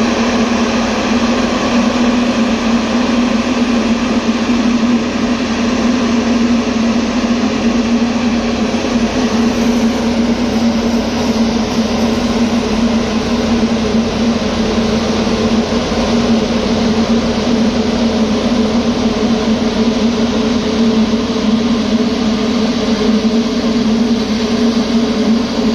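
Anti-smog gun (water mist cannon) running, its large fan blowing water mist out through the ring of spray nozzles: a loud, steady drone with a strong low hum.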